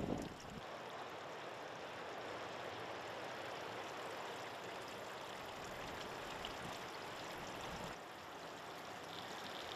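Water dripping and trickling from a layered rock cliff face: a steady, even patter of many drops that sounds much like rain.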